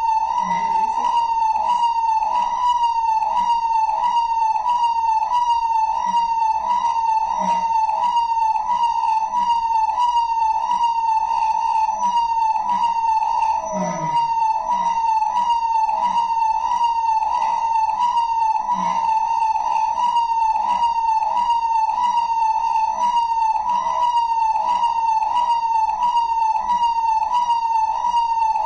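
Electronic police-style siren sound effect, a loud, fast yelping wail that rises and falls about twice a second without a break.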